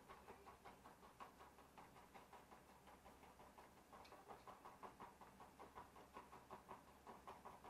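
Chef's knife mincing garlic on a wooden cutting board: a run of faint, quick taps of the blade on the board, speeding up to about five or six a second in the second half.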